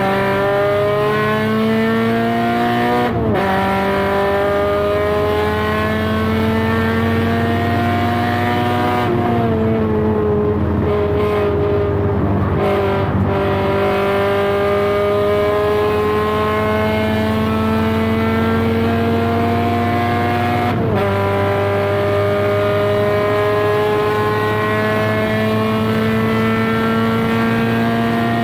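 Subaru BRZ's flat-four engine pulling hard on track, its pitch climbing steadily through the revs. It drops sharply at two upshifts, one about three seconds in and one about two-thirds of the way through. In between, the revs fall and break up for a few seconds while braking and downshifting for a corner.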